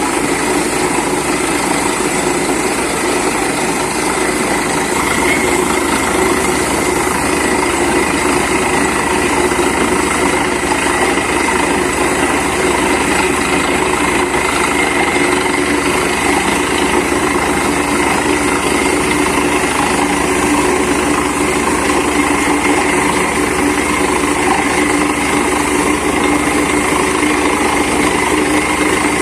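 Borewell drilling rig's engine-driven machinery running steadily, a continuous hum with a steady whine.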